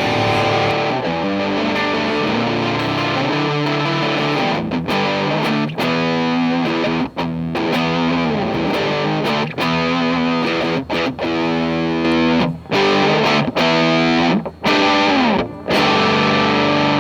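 Framus Idolmaker electric guitar played through the Earthquaker Devices Gray Channel dual overdrive pedal on its red channel, the diode switch settings being demonstrated. Distorted chords ring and are struck again and again, with several brief breaks between them.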